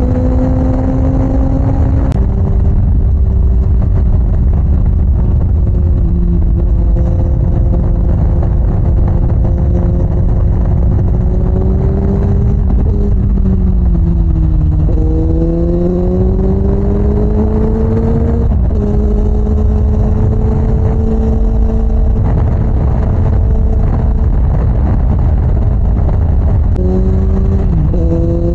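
Suzuki GSX-S750 inline-four engine running under way, heard with heavy wind rumble on the onboard microphone. Its pitch drops in steps about two seconds in and near the nineteen-second mark, and around the middle it sags and then climbs steadily as the bike slows and accelerates again.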